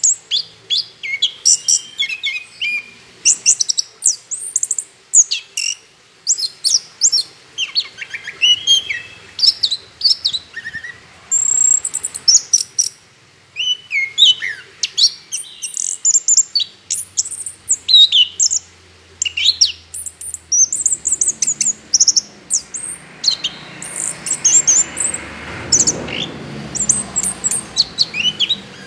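Orange-headed thrush singing continuously: a rapid, varied run of short high chirps and whistled notes that slide up and down, with hardly a pause. A soft hiss swells in the background toward the end.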